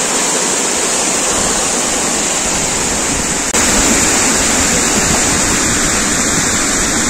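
Water cascading down a stone-block wall in a steady, loud rush. About halfway through it turns suddenly louder and fuller.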